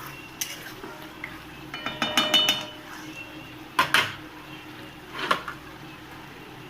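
Metal cooking pan and utensils clinking and knocking as the finished curry is taken off the stove: a quick run of ringing clinks about two seconds in, then two sharp knocks near four seconds and one more a little after five.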